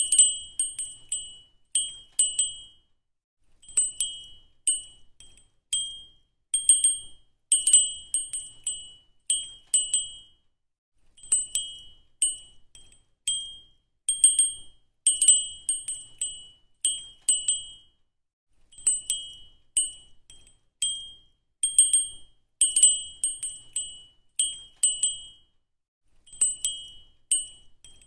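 A small bell jingling in quick high-pitched clusters of tinkles with short pauses between, as a cat wand toy is shaken over playing kittens.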